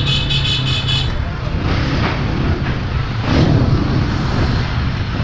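City street traffic and wind on the microphone of a bicycle-mounted camera while riding through traffic, a loud, steady rush. A high, rapidly pulsing tone sounds for about the first second.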